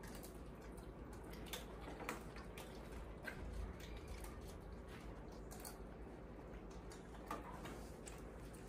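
Faint, scattered clicks and small wet smacks from monkeys eating instant noodles hand-fed to them from a steel bowl, over a low steady hum.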